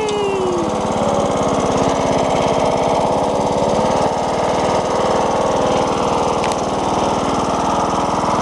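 Riding lawn mower's engine running steadily as the mower drives along.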